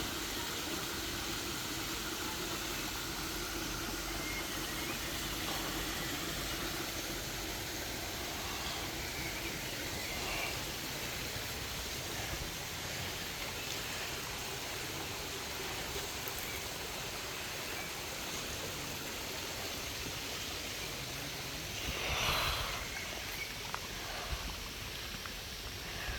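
A stream flowing steadily with an even rushing sound, and a short louder swell of noise near the end.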